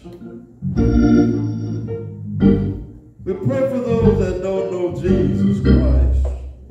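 Church organ playing sustained chords under a man's voice carried through the pulpit microphone.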